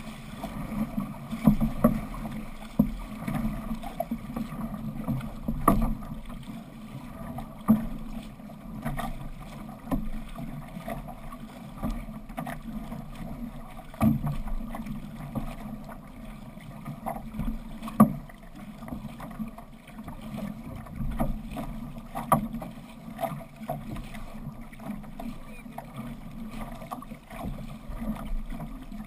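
Water rushing and splashing along a six-person outrigger canoe's hull and outrigger float as the crew paddles, with sharp slaps and splashes every few seconds.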